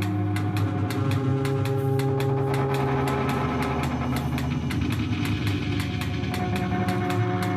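Live electronic music: layered steady drone tones over a fast, even ticking pulse, the drones shifting pitch about a second in and again about four seconds in.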